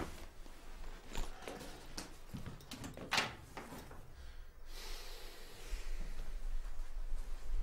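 A handful of light clicks and knocks, with one louder, sharp knock about three seconds in; a soft hiss and a low hum set in near the end.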